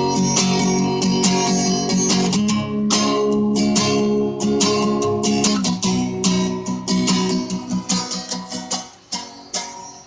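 Freshly strung acoustic guitar played solo: strummed chords that thin out to single picked notes near the end.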